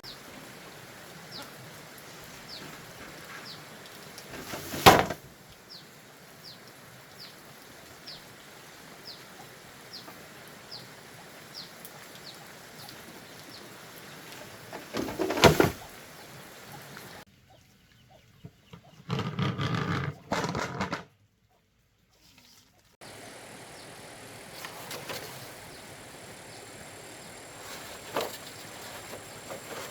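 Two sharp knocks about ten seconds apart over a steady outdoor hiss, with a run of faint, quick, high chirps repeating about twice a second through the first half. A short muffled burst of low rumbling comes past the middle, set between sudden drop-outs.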